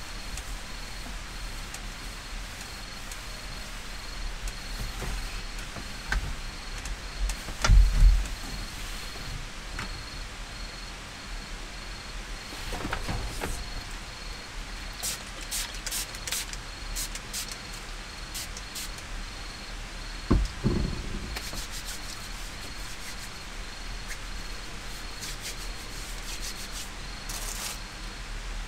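A cloth rubbing across a wooden tabletop, with hand-handling rustles and two dull knocks on the table, about eight and twenty seconds in. Crickets chirp steadily in a regular pulsing trill throughout.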